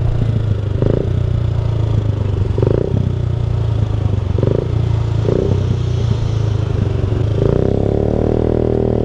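Sport motorcycle's engine running at low revs as the bike rolls slowly, with a few short higher-pitched sounds over it and a higher tone that rises in and holds for the last second and a half.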